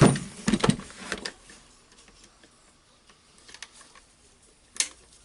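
Sharp clicks and taps of small hard parts being handled as the second carbon brush is taken out of a rotary hammer drill to be checked. A cluster of clicks in the first second, faint ticks after, and one more sharp click near the end.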